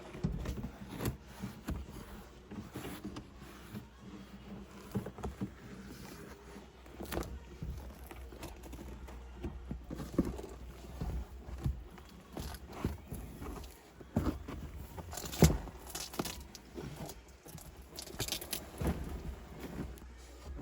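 Scattered clicks, knocks and rustles from hands working loose parts and carpet inside a car's stripped interior, with one louder knock about fifteen seconds in.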